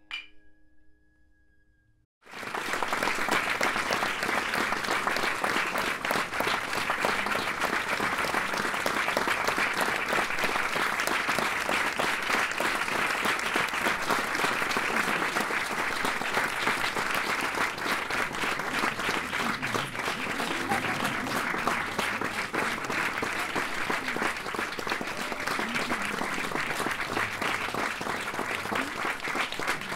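A last shamisen note fades into a brief silence. About two seconds in, audience applause starts suddenly and keeps going, dense and steady.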